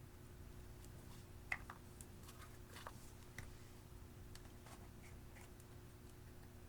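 Faint, scattered clicks and small crackling pops of slime being handled and pressed, loudest about one and a half seconds in, over a low steady hum.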